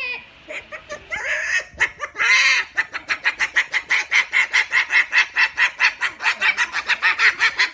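A pet bird calling: a few louder squawks, then from about three seconds in a fast, even string of short repeated calls, about five a second.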